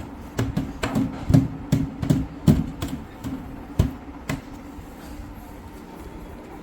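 Irregular knocks and clacks as a desk panel is fitted onto its dowels against the adjoining panels, about a dozen in the first four seconds, then quieter.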